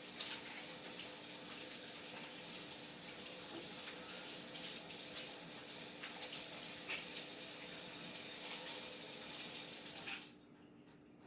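Sink faucet running with hands being washed under the stream, the water splashing unevenly; the tap is shut off about ten seconds in.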